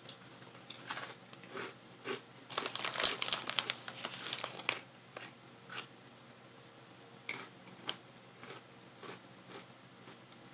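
Potato chips crunching while being eaten, with crinkling from handling the snack bag: scattered crisp cracks, a dense stretch of crackling about two and a half seconds in lasting some two seconds, then sparser single crunches.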